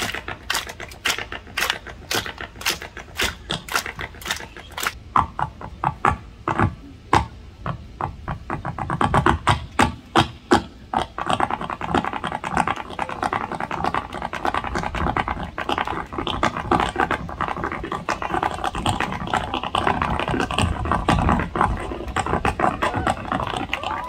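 Solo tap dance without music: metal-tipped tap shoes striking a wooden tap board. Spaced, syncopated clicks quicken into fast runs about ten seconds in, then become dense, continuous tapping.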